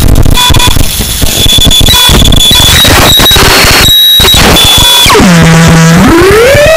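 Extreme harsh noise music, very loud: a dense wall of noise with thin high whistling tones. About five seconds in, a buzzing pitched tone drops low, holds for about a second, then glides back up and holds higher.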